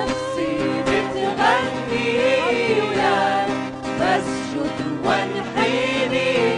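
Arabic Christian hymn: singing over instrumental backing, with a melody sliding between notes.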